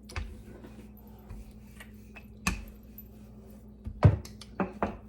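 Rolling pin working dumpling dough thin on a kitchen counter: a few dull knocks and thumps, the loudest about four seconds in, with a quick pair just after it, over a faint steady hum.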